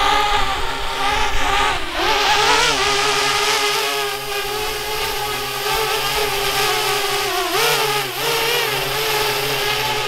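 Parrot Bebop quadcopter's electric motors and propellers whirring as it lifts off and hovers. The pitch swings up and down about two seconds in and again near the end as the motors change speed.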